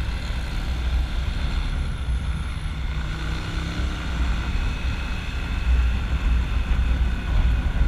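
Hozaka 150 GNX motorcycle on the move: its 150 cc engine running steadily at road speed, under a heavy rumble of wind on the microphone.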